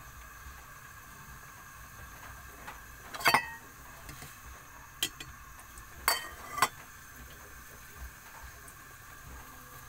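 Metal ladle stirring in a metal pot of simmering fish soup, clinking against the pot in a few sharp, ringing knocks: a quick cluster about three seconds in, then a single one, then two close together.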